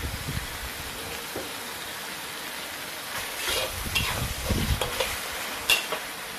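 Blended dried-chilli sambal paste sizzling in oil in a metal wok. From about halfway through, a metal ladle scrapes and knocks against the pan as the paste is stirred, with one sharp clink near the end.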